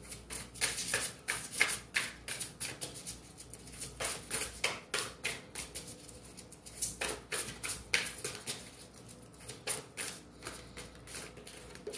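A deck of cards being shuffled by hand: quick, irregular flurries of card clicks and slaps with short pauses between them.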